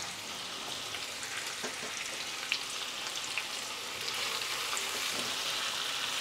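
Paneer cubes and green capsicum sizzling in hot oil in a non-stick wok, with a few faint clicks; from about four seconds in a spatula stirs them and the sizzle grows a little louder.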